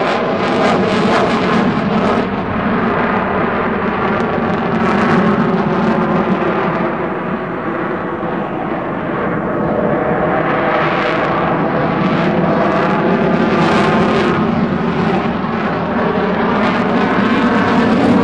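F-22 Raptor's twin Pratt & Whitney F119 turbofan engines at high power as the jet manoeuvres hard overhead: loud continuous jet noise with a crackling edge. It eases a little past the middle and swells again near the end.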